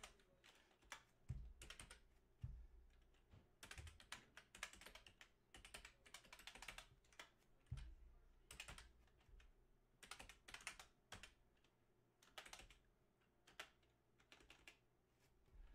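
Faint computer-keyboard typing in irregular bursts of key clicks with short pauses between words, along with a few soft low thumps.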